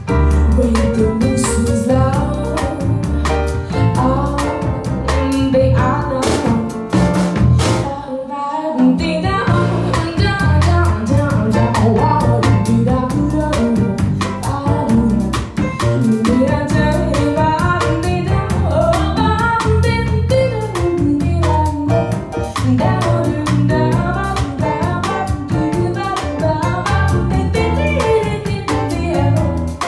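A woman singing a jazz standard live into a microphone, backed by a drum kit and piano. The band drops out briefly about eight seconds in, then comes back in.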